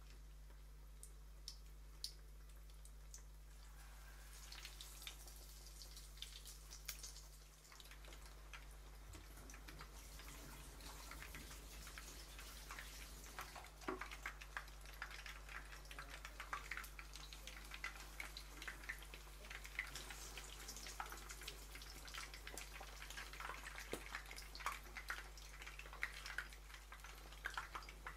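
Chicken thigh pieces in a flour-and-egg coating deep-frying in oil, crackling with many small pops. The crackle starts about four seconds in and grows denser.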